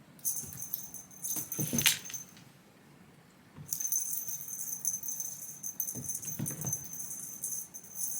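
A small bell jingling in two spells, with a steady high ring under the rattle and a couple of soft knocks.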